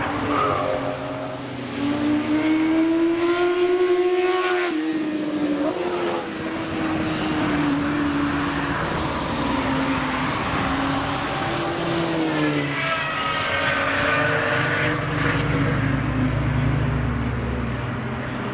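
Car engines on a race circuit, heard from trackside: revs climb, drop sharply at a gear change about five seconds in, climb and shift again about twelve seconds in, then rise once more.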